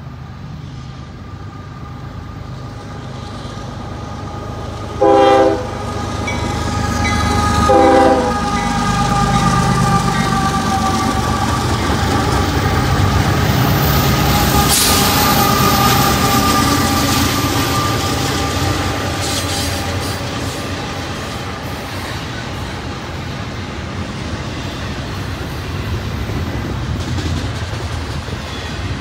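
Union Pacific diesel locomotives leading a double-stack intermodal freight train: two short horn blasts, about five and eight seconds in, as the train approaches. The engines grow louder as the locomotives pass, and the container cars then roll by with a steady rumble of wheels on rail.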